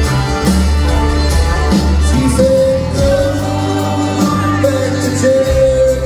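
A country band playing live, with long held melody notes over a pulsing low end and percussion.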